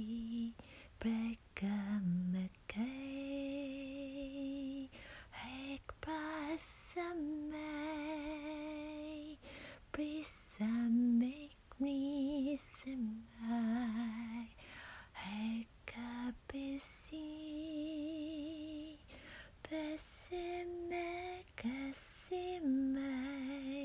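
A woman singing unaccompanied, improvising in light language ("space language"): invented syllables rather than words. She holds notes for a second or two with a slow wavering vibrato, in phrases broken by short breaths.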